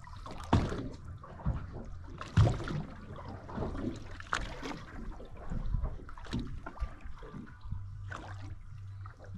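Water lapping and gurgling against a boat's hull in irregular slaps and splashes, with a steady low hum underneath.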